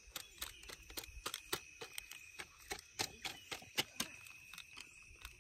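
Irregular sharp clicks and taps, several a second, over a faint steady high-pitched drone.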